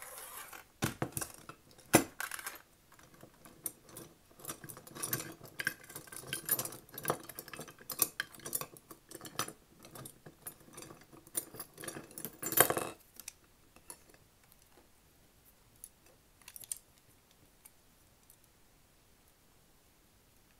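A bundle of metal crochet hooks with plastic grips rattling and clinking against each other as they are handled and sorted by hand, with a couple of sharper knocks, about two seconds in and about two-thirds through. After that only a few faint clicks.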